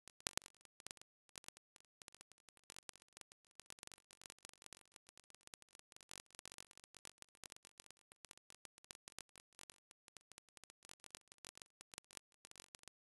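Near silence, with faint, rapid, irregular crackling.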